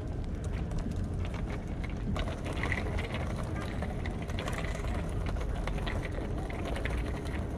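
Outdoor street ambience: a steady low rumble with scattered short clicks and faint distant voices.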